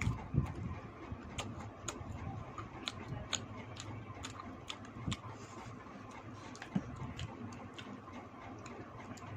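Close-up eating sounds: irregular clicks and smacks of chewing and mouth noises as chicken curry is eaten.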